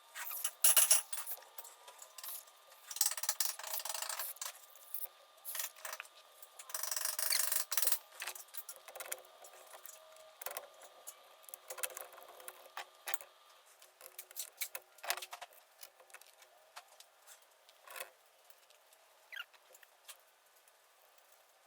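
Hand work on an Edelbrock carburetor: short bursts of scraping and rubbing, like torch tip cleaners worked through its small ports, during the first half, then scattered light clicks and taps of small metal parts that thin out toward the end.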